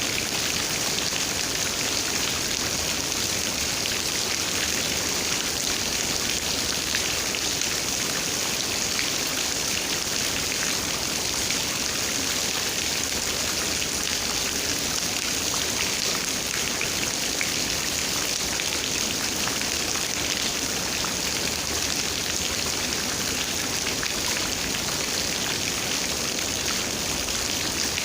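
Steady rain falling, an even hiss with many small drop hits, unchanging throughout.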